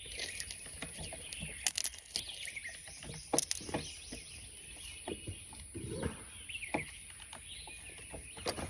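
Birds chirping, with scattered light clicks and taps and a thin steady high-pitched tone.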